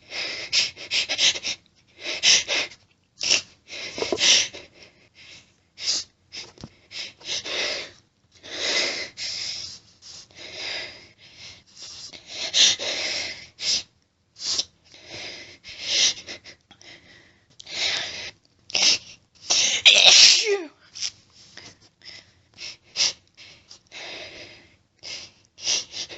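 A woman's desperate sneeze fit: rapid hitching gasps and sharp catches of breath as she tries to hold back her sneezes, with one loud burst about twenty seconds in.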